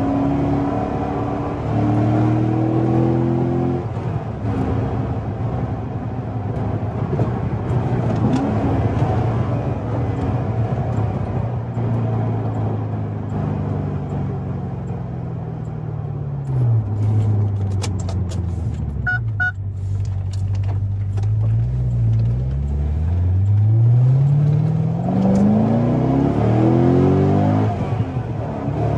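2008 Corvette C6 Z06's 7.0-litre LS7 V8 heard from inside the cabin under acceleration: the engine note rises, falls back to a low steady note, then climbs hard and drops suddenly at a gear shift near the end before rising again. A short electronic beep sounds about two-thirds of the way through.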